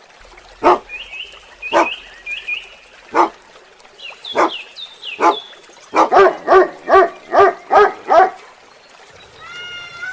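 Dog barking: five single barks spaced about a second apart, then a quick run of seven barks, about three a second.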